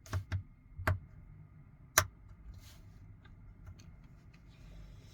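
Small sharp clicks and taps of a part and tool on a smartphone's internal frame during reassembly: four quick clicks in the first two seconds, the last the loudest, then faint scraping.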